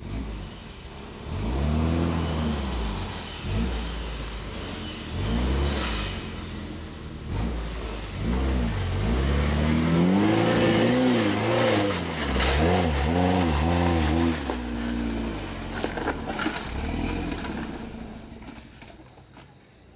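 Geo Tracker 4x4's engine revving hard in repeated bursts, pitch rising and falling as it claws up a muddy hill climb, with a few clunks from the chassis. The engine fades away over the last couple of seconds.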